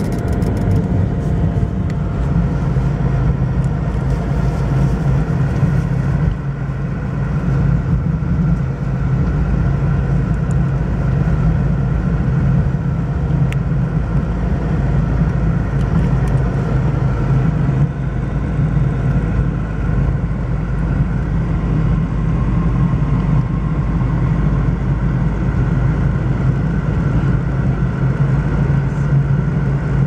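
Car running, a steady engine and road rumble heard from inside the cabin.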